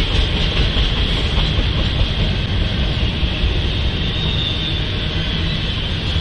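Double-stack intermodal freight train's well cars rolling past, a steady noise of steel wheels running on the rails.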